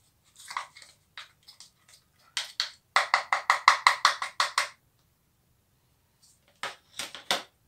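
A plastic spoon clicking rapidly against a bowl while stirring a thick yogurt, honey and turmeric paste. A quick run of about eight clicks a second lasts under two seconds, and a few more clicks come near the end.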